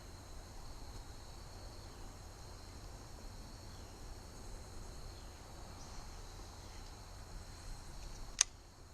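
A steady, high-pitched chorus of crickets and other insects, with a low rumble beneath it. A single sharp click comes near the end.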